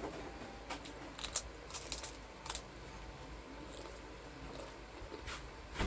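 Dry water crackers being bitten and chewed: a faint run of scattered crunches and clicks, thickest in the first two and a half seconds and again near the end.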